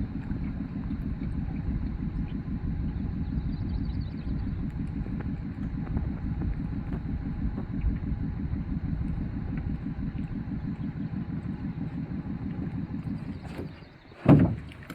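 Boat's outboard motor running steadily with a low rumble. Near the end it dies away and a single loud thump follows.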